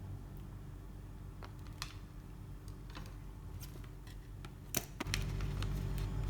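Scattered light clicks and taps of fingers picking at the stitched thread closing a rice sack, trying to find the end that unravels it. A low steady hum comes in about five seconds in.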